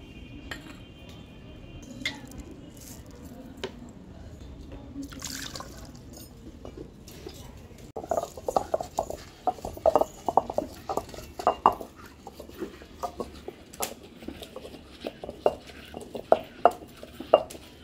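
Hand-turned stone wet grinder (aattukal): the cylindrical granite grinding stone crushing pieces of coconut with fennel and poppy seed against its stone basin, giving irregular sharp knocks and crunches, about two or three a second. The knocks start about eight seconds in, after a quieter stretch with a few scattered clicks.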